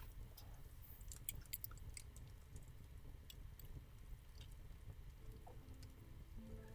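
Near silence: a steady low room hum with a few faint, scattered clicks, and some faint brief tones near the end.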